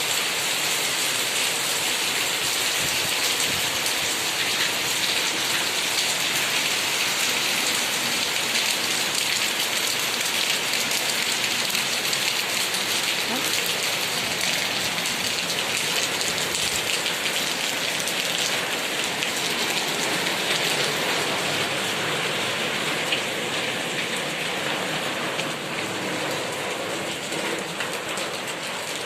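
Heavy rain pouring down steadily, growing a little quieter in the last few seconds.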